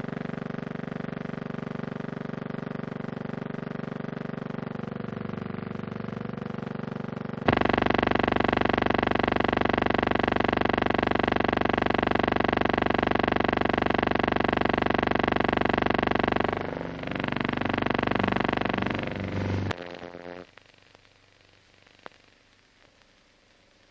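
Steady electrical buzz with many stacked overtones, not a sound of the scene, since the film is silent. It gets louder about seven seconds in, wavers near sixteen seconds, and cuts off at about twenty seconds, leaving near silence.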